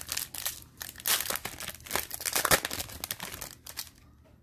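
A Bowman Chrome baseball card pack's foil wrapper torn open at its crimped seal: a dense run of crinkling and tearing that stops about four seconds in.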